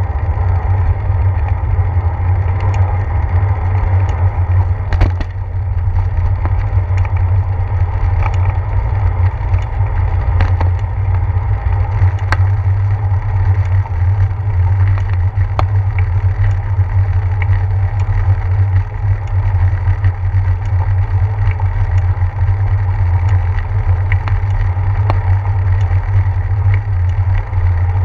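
Steady low rumble of wind and road vibration picked up by a handlebar-mounted GoPro Hero 4 on a moving bicycle rolling over wet pavement and brick, with scattered sharp clicks and rattles from bumps in the road.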